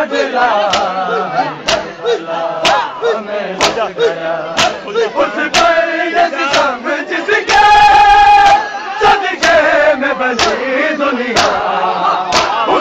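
Men chanting a nauha (mourning elegy) together, with loud, rhythmic chest-beating (matam) in unison about once a second. About seven and a half seconds in there is a long, high held note.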